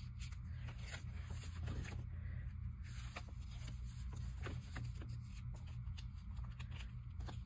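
Paper rustling and crinkling as cut-out magazine pictures and binder pages are handled and shifted about, with scattered small ticks and taps, over a steady low hum.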